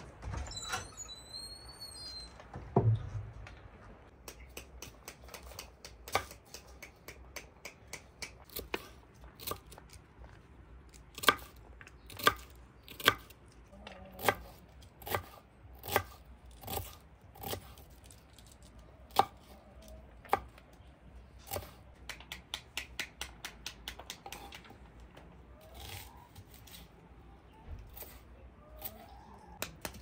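Knife chopping a red onion on a wooden cutting board: sharp taps of the blade on the board, about one a second, with a quick run of several taps a little after the middle. A short high chirp and a single thump come first.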